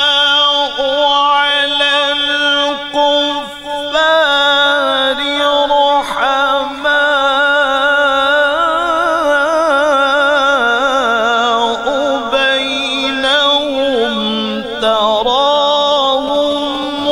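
A male qari chanting Qur'an recitation (tilawat) in a melodic style. He holds long, ornamented notes whose pitch wavers and slides, with only a few brief breaks for breath.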